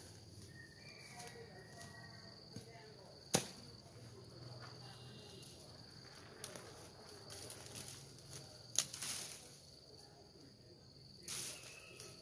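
Dry bamboo leaves and twigs rustling and crackling as undergrowth is cleared by hand, with two sharp cracks, about three seconds in and near nine seconds, and a louder rustle near the end. A steady high insect trill runs underneath.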